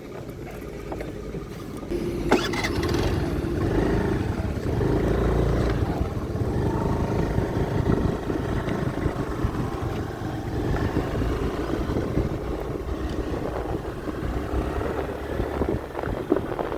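Honda Activa 3G scooter's single-cylinder engine running on a trial after its gearbox rebuild and gear-oil refill, with a sharp knock about two seconds in before the running sound grows louder.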